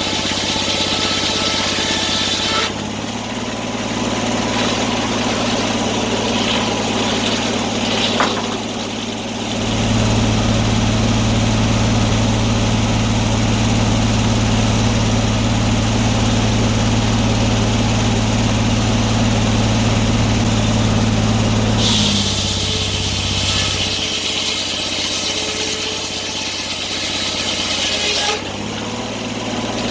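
Antique sawmill running, its engine and saw making a steady machine hum that grows louder from about ten seconds in until about twenty-two seconds, then eases back.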